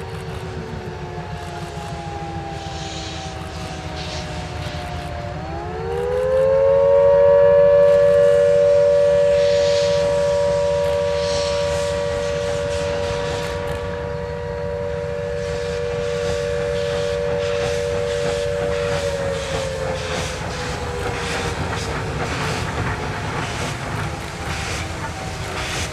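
Steam chime whistle of Beyer Garratt 14A 519, a 4-8-2+2-8-4 locomotive, sounding one long blast made of several notes at once. The pitch sags, then rises sharply about five seconds in to a loud, steady chord. It holds until near the end, then slides down as it fades. Beneath it are the locomotive's exhaust beats and steam hiss, which grow stronger near the end as it gets under way.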